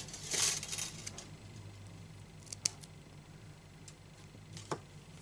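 Faint handling of thread and a steel crochet hook: a short rustle just after the start, then two light clicks, over a low steady hum.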